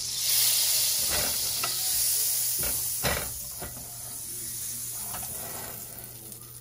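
Olive oil and butter sizzling in a hot cast-iron skillet as the pan is tilted and swirled on an electric coil burner. The sizzle is loudest in the first few seconds and then eases, and the heavy pan knocks against the burner a few times.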